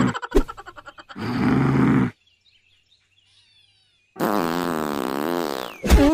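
Cartoon fart sound effects: a short sputtering fart and a noisy burst in the first two seconds, then a long fart with a wavering pitch from about four seconds in, ending in a sharp loud pop.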